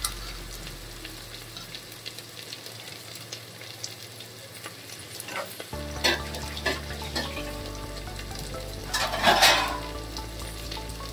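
Chopped onions sizzling in hot oil in an aluminium pressure cooker as they fry toward light brown, with scattered pops. A steel spatula scrapes against the pot a few times, loudest about nine seconds in.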